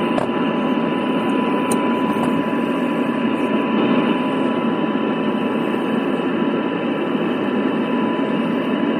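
Receiver audio from a software-defined radio demodulating an AM test signal from a signal generator: a steady tone under loud, even hiss, with no breaks.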